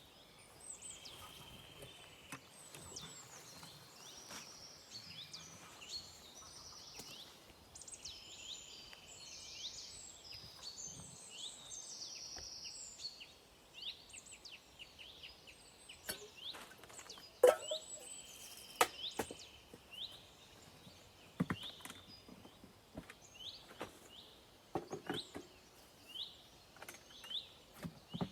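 Several birds singing, with many quick high chirps and short buzzy notes. From about halfway through, a series of sharp knocks and clatters breaks in, the loudest about two-thirds of the way in.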